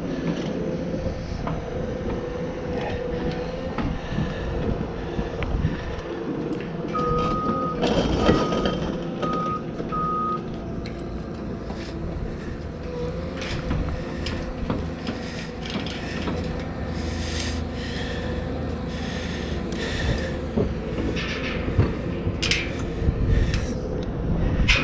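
An engine running steadily, with four short beeps in a row about a third of the way in, like a machine's warning beeper. Scattered knocks and clanks, with wind noise on the microphone.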